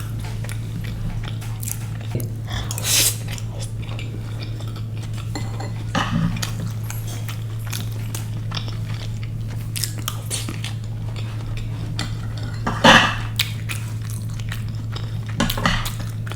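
Close-miked eating: cutlery clinking against a plate, bites and chewing, with a few louder bites about 3, 6 and 13 seconds in.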